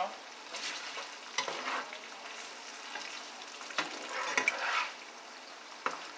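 Food sizzling in a pan on the stove while a utensil stirs it, scraping and clicking against the pan in two spells, about a second in and again around four seconds in.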